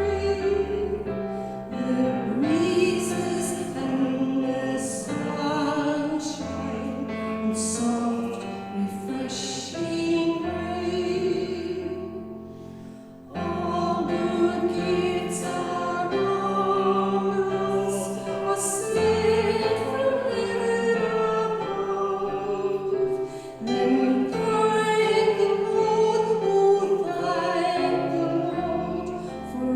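Church music: classical-style singing over instrumental accompaniment, with a brief break about thirteen seconds in before the music picks up again.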